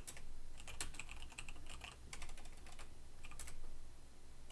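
Typing on a computer keyboard in a few short bursts of keystrokes with pauses between, as commands are entered to assemble and run a program.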